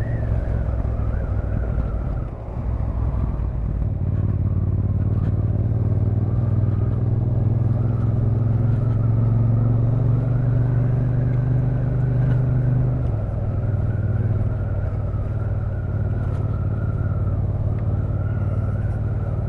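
Motorcycle engine running on the move, a steady low hum that eases off briefly about two seconds in and then picks up again. A thin steady whine sits above it.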